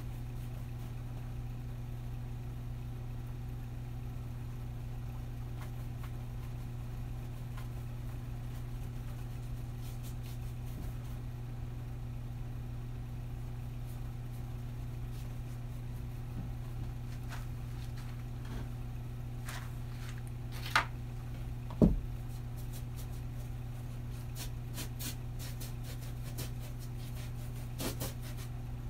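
A steady low hum throughout, with faint scratchy strokes of a paintbrush on canvas. Two sharp knocks a little past the middle are the loudest sounds.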